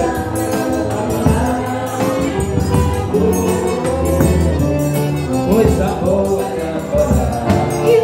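Live forró music: a piano accordion playing over a zabumba bass drum and a ringing triangle, with male and female voices singing.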